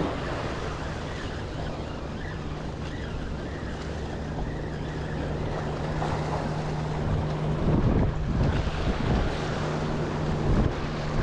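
Waves washing over and breaking against the rocks of a jetty, with wind buffeting the microphone. The surf swells louder about eight seconds in.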